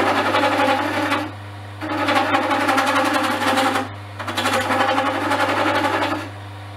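A chisel cutting a spinning olive-wood pen blank on a wood lathe, in three passes of about two seconds each with short breaks between them. A steady low hum runs underneath.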